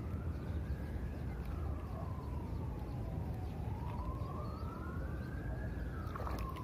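A faint emergency-vehicle siren wailing, its pitch rising and falling slowly through about two sweeps, over a steady low background rumble.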